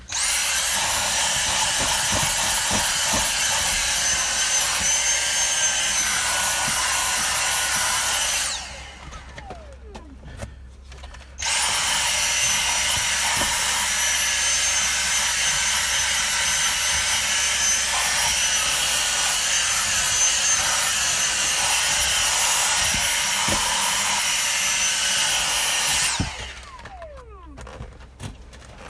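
Vacuum cleaner hoovering car carpet: its motor runs with a steady high whine, is switched off about eight seconds in and winds down, then is switched back on about three seconds later and runs until it is switched off and winds down again near the end.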